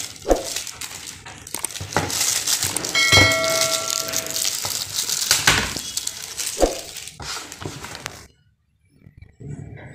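Clear plastic wrapping on a mouse-and-rat glue board crinkling as hands handle and peel it, with a short ringing chime about three seconds in. The crinkling stops about eight seconds in.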